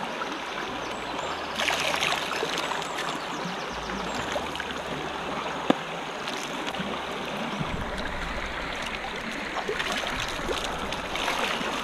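River water flowing steadily, with splashing and dripping as men wade and wash in it. A single sharp click about six seconds in.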